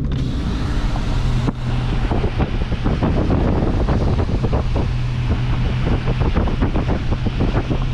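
Wind buffeting the microphone from a moving car, a gusty rushing noise over the steady low hum of the car's engine and tyres on the road.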